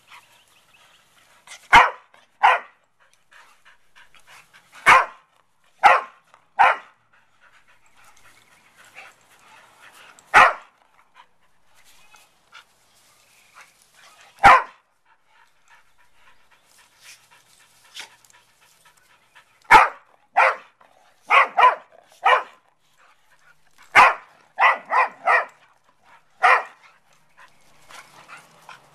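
Dogs giving short, sharp play barks while wrestling, about seventeen barks in all, some single and some in quick runs of two to four in the second half.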